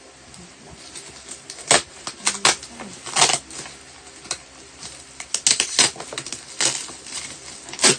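Plastic mailer pouch and bubble-wrap packaging crinkling and rustling as it is handled, in a string of sharp, irregular crackles.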